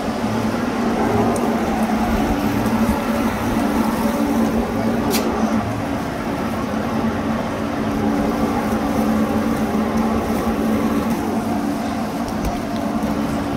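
A motor running with a steady low hum and no change in speed.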